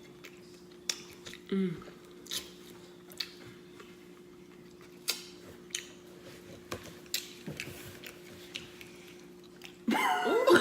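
Close-up chewing with irregular lip smacks and mouth clicks while eating, over a faint steady hum. A loud voice breaks in near the end.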